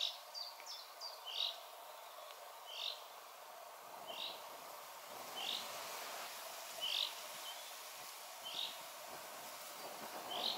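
Common chaffinch calling: a single short call note repeated about every second and a half, with a few fainter, higher chirps in the first second. Wind rumbles on the microphone from about four seconds in.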